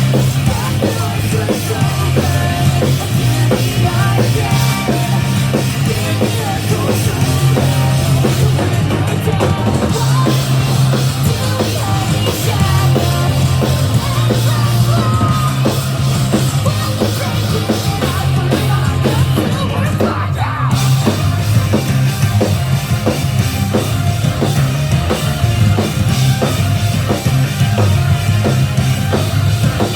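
Live rock band playing loudly through a venue PA: a driving drum kit with steady, even strokes, a heavy bass line and distorted guitars.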